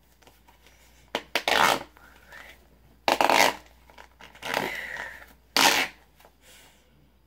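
Plastic cap of a Flintstones gummy-vitamin bottle being pushed and twisted open, in about five short scraping, crackling bursts of handled plastic.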